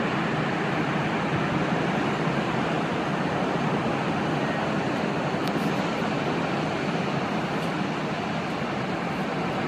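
Sea surf washing on the shore, a continuous steady rushing with no distinct breaks between waves.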